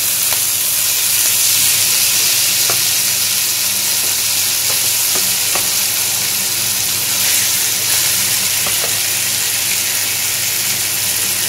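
Tikka-marinated chicken drumsticks sizzling in a little hot oil in a kadhai: a steady frying hiss with a few faint pops.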